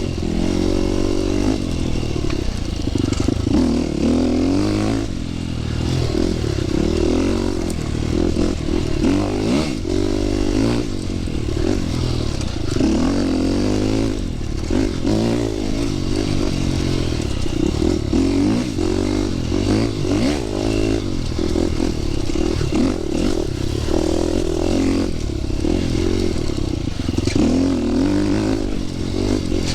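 Dirt bike engine being ridden slowly along a trail, its revs rising and falling every second or two as the throttle is worked, with scattered rattles and knocks.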